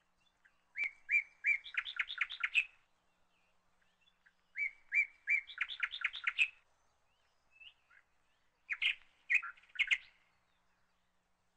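A small songbird singing: twice a phrase of a few separate whistled notes running into a quick trill, then a shorter, different phrase near the end.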